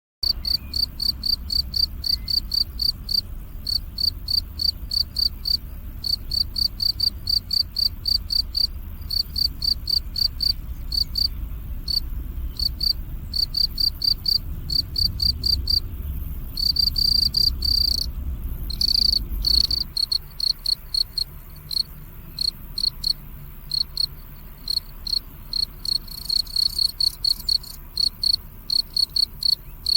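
Field cricket chirping: a steady run of high, clear chirps, about three a second, broken by short pauses and a few longer unbroken trills.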